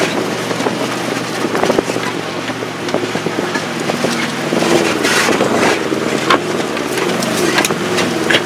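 Volkswagen Vanagon driving over a rough, rutted dirt trail, heard from inside the cab. The engine runs steadily, its pitch wavering up and down from about halfway through, with scattered knocks and rattles as the van jolts over the ruts.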